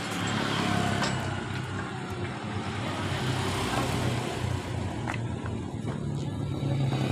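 Steady background noise of a motor vehicle engine running nearby, a continuous low hum under a traffic-like rumble, with a couple of faint clicks.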